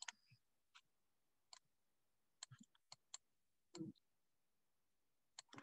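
Near silence with a handful of faint, scattered clicks, about nine over five seconds.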